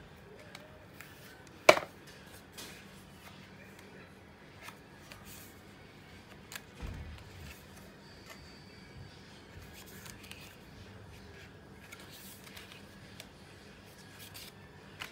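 Handling noises of a paper flap book: faint rustles and small clicks, a sharp loud click about two seconds in and a dull thump about seven seconds in.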